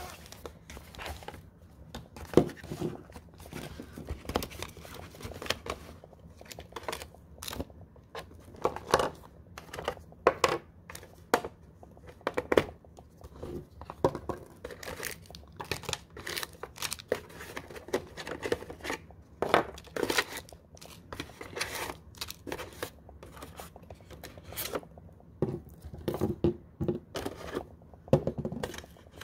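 Packaging being handled as a boxed camera kit is unpacked: irregular rustling, crinkling and sharp clicks of the cardboard box and its black packing insert as hands pull parts out.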